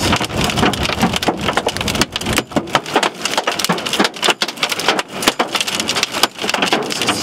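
Hailstones pelting a car, heard from inside the cabin: a dense, irregular clatter of hard hits over a steady wash of storm noise.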